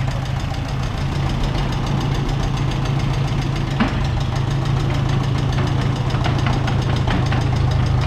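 Ferguson TE20 tractor's four-cylinder engine running steadily at idle on tractor vaporising oil (TVO). There is one sharp click a little before four seconds in.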